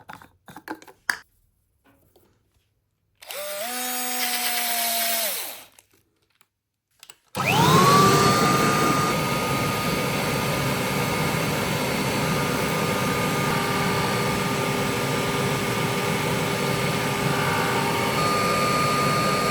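Power tool driving a buffing wheel, polishing plastic. After a few light clicks it runs briefly and winds down about three seconds in. About seven seconds in it spins up with a rising whine and then runs steadily, its pitch shifting slightly as the wheel is worked against the surface.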